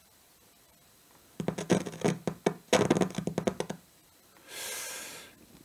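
Lawo V976/18 preamplifier crackling and spitting in a dense run of bursts mixed with hum, for about two seconds, as its control shaft is nudged with a plastic tool: an intermittent contact that the repairer doubts is a dry solder joint. A soft hissing rush follows near the end.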